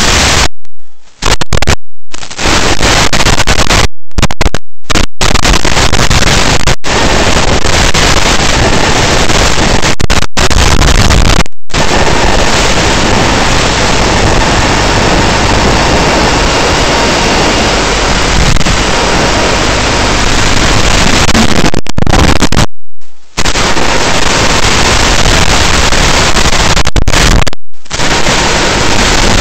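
Loud, even hiss and static from an analog FPV video receiver's audio channel, broken by a number of brief, abrupt dropouts.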